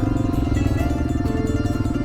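Background music: held notes over a fast, steady pulsing figure and a strong bass line.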